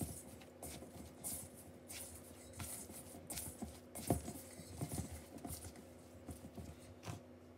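Hands working soft pizza dough in a bowl: faint, irregular squishes and taps.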